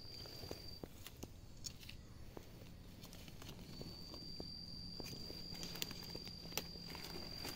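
Footsteps and scattered snaps and crackles of dry leaves and twigs underfoot in forest litter. Under them is a steady high-pitched insect call that stops about a second in and starts again about four seconds in.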